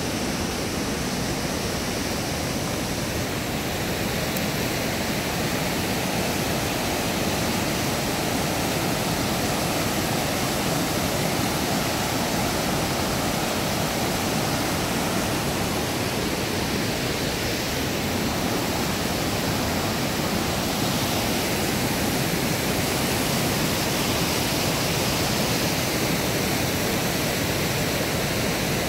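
River rapids and a low waterfall rushing steadily: an even, unbroken wash of white water.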